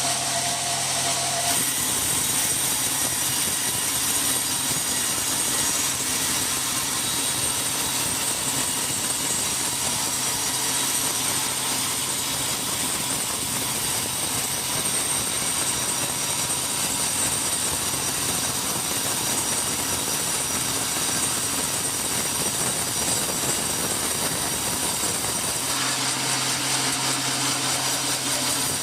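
Sawmill saw running with a steady high whine, cutting a teak log. About 1.5 s in its low hum gives way to a rougher, denser noise, as when the blade goes under load in the cut. Near the end the low hum returns.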